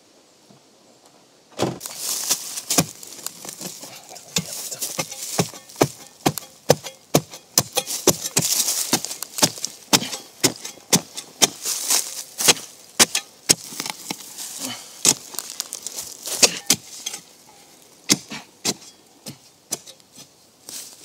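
A spade chopped repeatedly into forest soil, about two strikes a second, with the scrape and rustle of earth and dead leaves between strikes. It starts about a second and a half in and thins out near the end.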